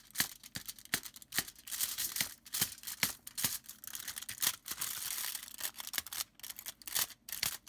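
Aluminium foil crinkling and tearing as fingers work it around soldered joints: a run of irregular sharp crackles.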